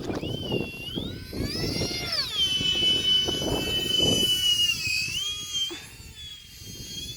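The twin electric ducted fans of an E-flite UMX A-10 model jet whining in flight. The pitch rises, falls back and holds steady, then dips and fades near the end. Gusty wind rumbles on the microphone throughout.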